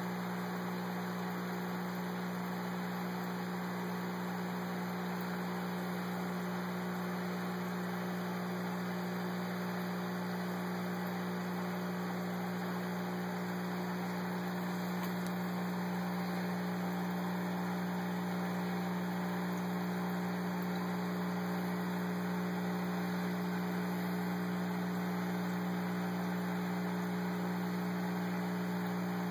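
Aquarium pump equipment humming steadily: a low electrical hum with a faint hiss over it.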